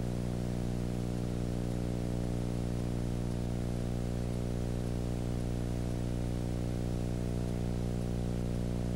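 A steady, unchanging low hum with many overtones, under a constant hiss.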